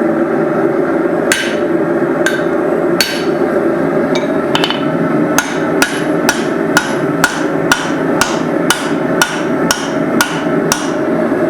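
Hand hammer striking hot steel on an anvil: cross peen blows forging a small hammer head, a few spaced strikes at first, then a steady rhythm of about two ringing blows a second. A steady low rush runs underneath.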